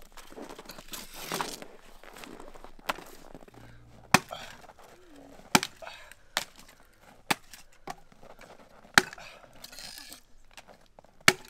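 A series of sharp single knocks or chopping strikes, about eight of them, spaced irregularly roughly a second apart.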